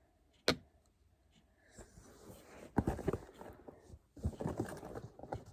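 Beauty products and their packaging being handled: a single sharp click about half a second in, then rustling with light knocks and clicks from about two seconds in.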